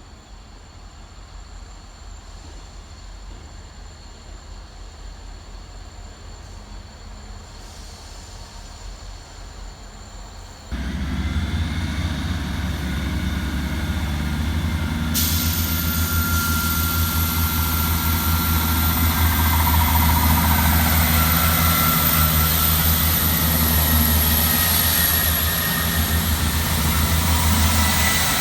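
Diesel train at a station platform: faint at first, then about ten seconds in a much louder low engine rumble comes in suddenly and runs on steadily, with thin whining tones above it.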